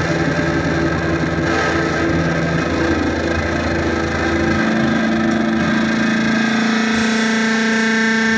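Live electric guitar with distortion and effects, together with electric bass, holding sustained, droning notes. About halfway through, the deep bass drops out, leaving a held guitar tone ringing on.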